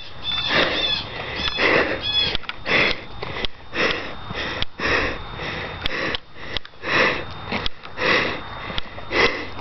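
A person's short breathy bursts, right at the microphone, repeating about one and a half times a second.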